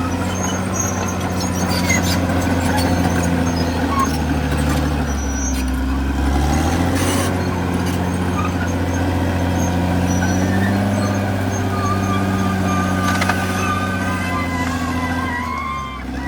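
CAT D6R XL bulldozer's diesel engine running steadily under load, its pitch shifting about six and a half seconds in, with clanks from the machine. Wavering high squeaks come in near the end.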